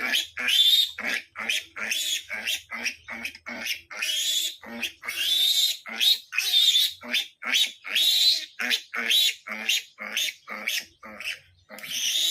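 Three-day-old piglets squealing in rapid, high-pitched cries, about two to three a second with a few longer squeals among them, while being handled and treated just after castration.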